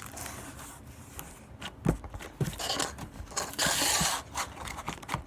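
Hands working a clear, stretchy glitter slime: scattered small sticky clicks and pops, with a louder rubbing, scraping hiss about three and a half seconds in.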